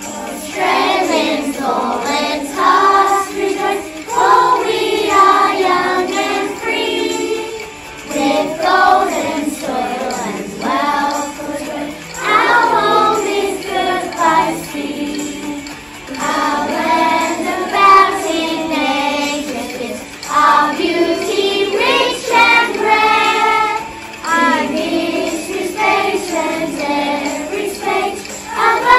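A group of children singing a song together, in sung phrases with short breaks between them.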